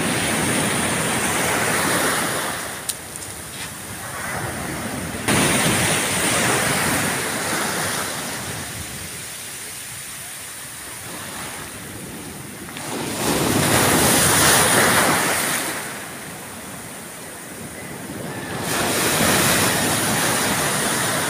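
Sea surf breaking and washing up the shore, rising and falling back every few seconds.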